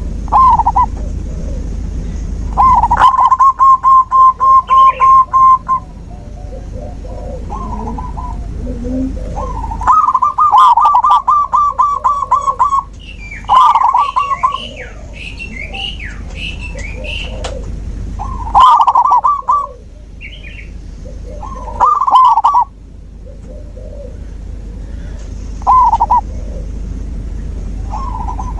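Zebra doves (perkutut) cooing in bursts of rapid staccato notes, several times, some bursts running two to three seconds. Faint higher chirps of smaller birds come in between.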